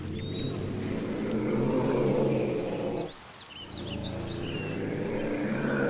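An ocelot's call: two long, low, rough vocalizations of about three seconds each, separated by a short break about three seconds in.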